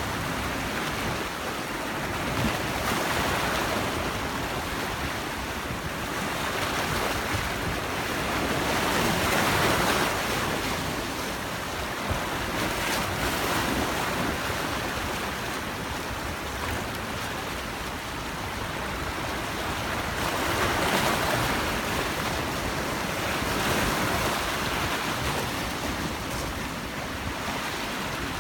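Sea waves breaking and washing in, a steady rush of surf that swells louder every few seconds as each wave comes in and then falls back.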